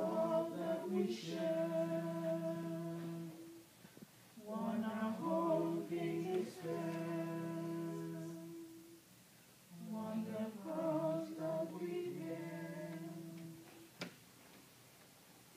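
Voices singing a slow church hymn, the offertory hymn of the Mass, in three long phrases with held notes and a short pause between each. A sharp click near the end.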